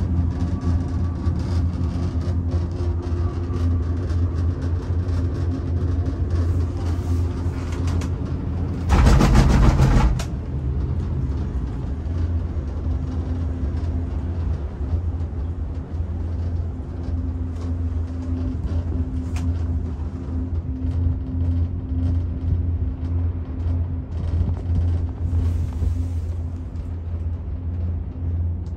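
Steady low rumble of a moving vehicle, with a louder rushing noise about nine seconds in that lasts about a second.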